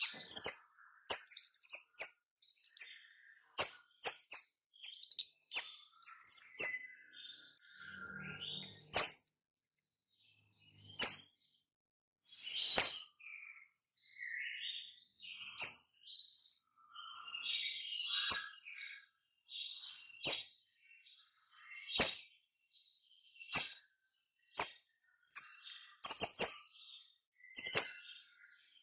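A caged kemade songbird calling in short, sharp, high chirps. The chirps come in quick runs at the start and near the end, and singly every second or two in between, with soft quiet twittering in the gaps.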